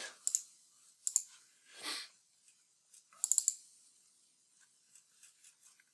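Computer mouse clicks: single sharp clicks about a third of a second and a second in, then a quick run of several clicks a little after three seconds.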